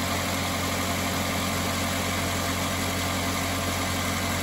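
Car engine idling steadily, the idle settled after starting.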